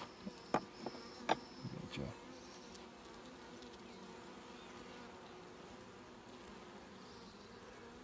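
Honeybees from an open top bar hive, a steady low hum of many bees. In the first two seconds a few light knocks and clicks sound as the wooden top bars are handled.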